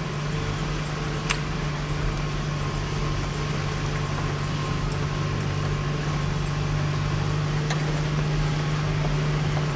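Nissan Frontier pickup's engine and drivetrain running at a steady low speed in four-wheel-drive low, heard inside the cab, as a constant low hum. A single sharp click about a second in.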